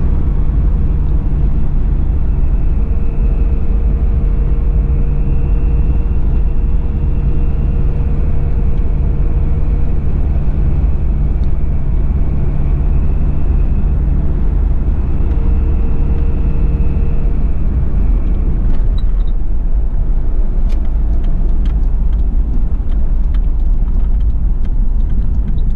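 Steady in-cabin running noise of a 1991 Toyota Land Cruiser Prado LJ78's 2.4-litre turbo diesel cruising at highway speed, with low rumble and road noise. A faint high whistle runs through most of it and fades out about 18 seconds in.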